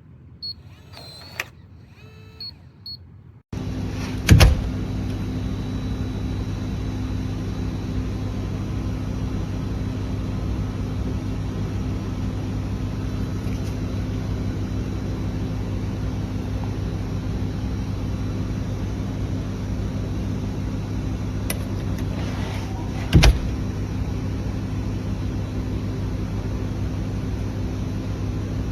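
A few faint electronic beeps, then a loud, steady, low mechanical hum starts abruptly a few seconds in and runs on, with a sharp click near the start and another near the end.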